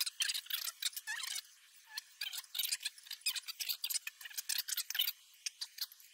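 Scraping and scrubbing on the shotgun's metal parts as they are cleaned: quick, irregular, scratchy strokes, with a short pause about a second and a half in.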